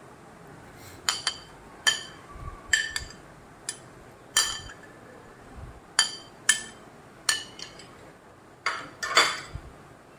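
Metal spoon clinking and scraping against glassware while mango pieces are scooped out of a glass bowl: about a dozen sharp ringing taps at irregular intervals.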